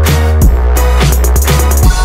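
Background music with a deep, sustained bass and a steady drum beat.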